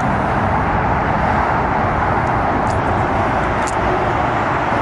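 Steady roar of city traffic picked up by a camera's built-in microphone, an even noise with no changes, with a couple of faint ticks about three seconds in.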